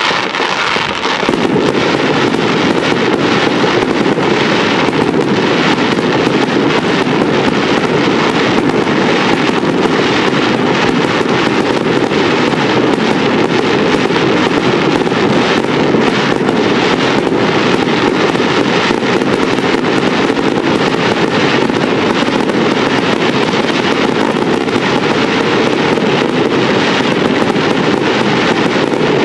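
Fireworks display going off in a dense, unbroken barrage of bangs and crackle, swelling to full loudness about a second in.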